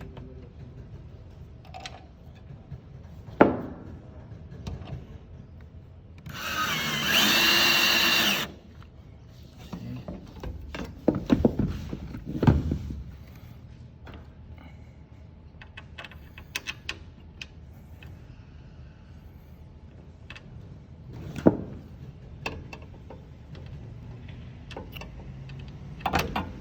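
Power drill-driver with a hex bit running for about two seconds with a steady whine, driving a screw into the barrier frame, amid scattered knocks and clacks of the frame parts being handled.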